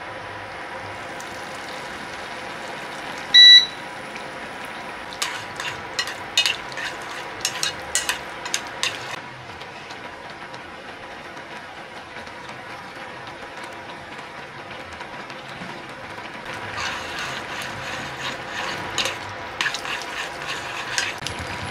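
Electric cooktop giving one short, loud beep about three seconds in over a steady hum, followed by a run of sharp clicks and taps at the saucepan. Near the end, metal chopsticks clink against the saucepan as noodles are stirred in the sauce.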